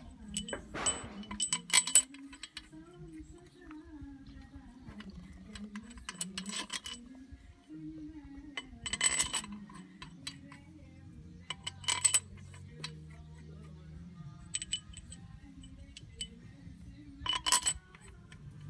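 Metal tools and engine parts clinking and knocking now and then, each strike ringing briefly, over a faint low hum.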